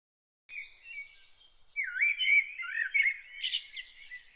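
A songbird chirping: a run of quick whistled notes that sweep down and up, starting about half a second in.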